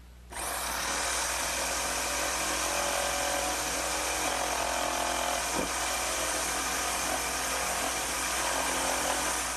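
Electric jigsaw running steadily as its blade cuts through wood, nibbling out the last material of a mortise. It starts just after the beginning and stops near the end.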